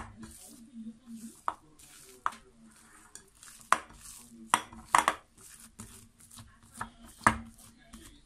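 Hands punching down and folding a risen yeast dough in a ceramic plate, with a dozen or so sharp, irregular clicks and knocks as the plate is handled and turned on a stone countertop.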